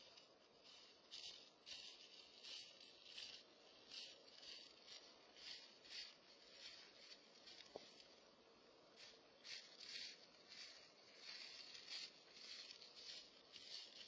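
Faint dry-leaf rustling from an opossum's footsteps in dense leaf litter, short scuffs about twice a second.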